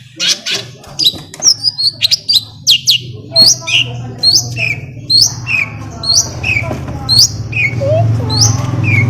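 Long-tailed shrike singing: a few seconds of rapid scratchy notes, then a repeated short call about twice a second, each note sliding down in pitch, over a low steady hum.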